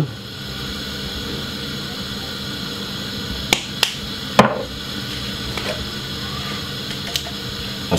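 A few sharp clicks and knocks from handling a spice container while ground cinnamon is added to a glass measuring jug of oats and cornmeal. The loudest knock comes about four and a half seconds in, over a steady low background hum.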